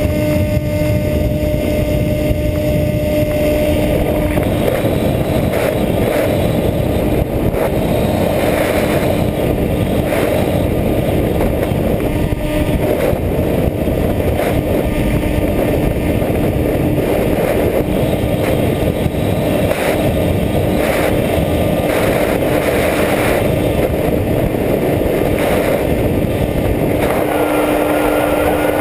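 Skywalker 1900 RC motor glider heard from its onboard camera: a steady electric motor and propeller drone with rushing wind over the airframe. About a second in the motor tone drops back and mostly wind rush is left as the glider flies on reduced power, then the motor tone comes back up near the end.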